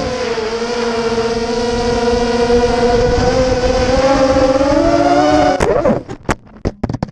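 FPV quadcopter's motors and propellers whining at a steady pitch that dips and rises with the throttle. A little over five seconds in, the whine drops away and a quick run of sharp knocks follows as the quad tumbles.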